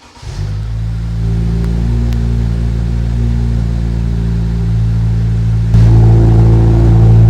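Subaru WRX's 2.4-litre turbocharged flat-four (FA24) starting and settling into a steady idle through an F1 valved catback exhaust. Near the end the exhaust note steps up abruptly louder at the same pitch, as the exhaust valves open.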